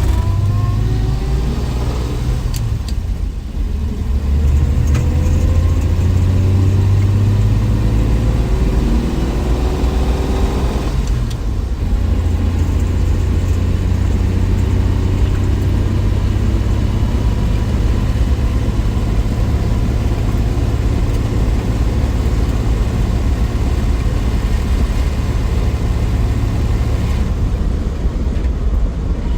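1963 Willys Wagon's Tornado 230 overhead-cam inline-six pulling the wagon up through the gears. The engine note rises, drops at a shift a few seconds in, rises again, and shifts once more about eleven seconds in. After that it runs at a steady cruise.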